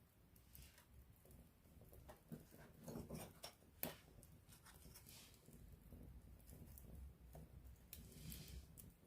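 Wood campfire burning close up, faintly crackling with scattered pops and snaps, the sharpest pop about four seconds in.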